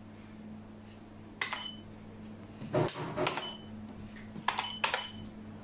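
Xiangqi pieces clacking down on the board and the chess clock being tapped during a fast exchange of moves under time pressure: about five sharp clicks, two closely spaced pairs in the second half, over a low steady hum.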